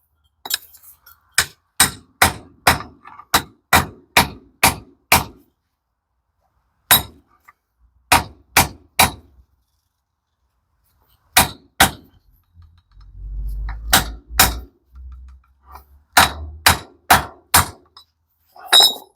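Repeated sharp metal-on-metal hammer blows, in runs of several about two or three a second, as parts of a Toyota MMT gearbox shaft assembly are driven into place. A brief low rumble sits between the runs.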